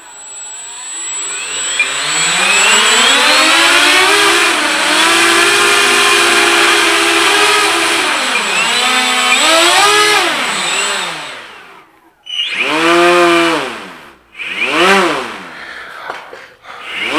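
Several small electric motors on an RC boat spin airplane propellers under throttle, a whine with propeller buzz. It rises over about two seconds and holds steady for several seconds, then falls away. Three short throttle blips follow near the end, each rising and falling in pitch.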